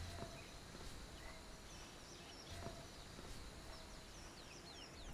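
Faint outdoor ambience with small birds chirping in short, high calls, many of them in the second half, and a couple of soft knocks.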